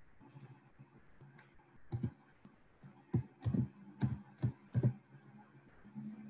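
Computer keyboard being typed on: about half a dozen separate keystrokes between two and five seconds in.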